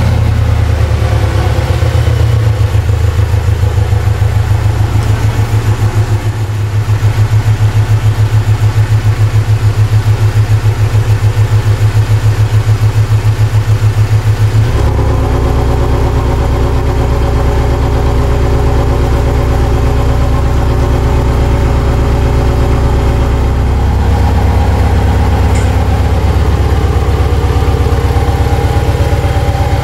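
A 2018 Porsche 718 Cayman GTS's turbocharged flat-four running through a Soul Performance sport-catalyst downpipe and X-pipe exhaust. It makes a steady, deep exhaust drone with a regular pulsing beat in the first half. The tone changes about halfway through.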